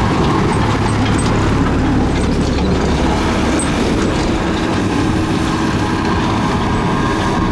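Komatsu bulldozer's diesel engine running steadily.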